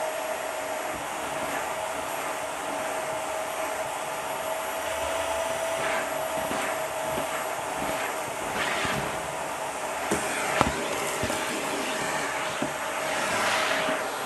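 Dyson vacuum running with a steady whine through its hose tool, sucking crunchy debris off a shag rug; bits rattle and click up the hose, with a few sharp clicks about ten seconds in and a hissing swell near the end.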